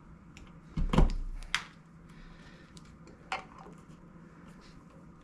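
Wire strippers handled and working on electrical wire: a thump with a click about a second in, then sharp separate clicks, one about half a second later and one near the middle, with faint ticks between.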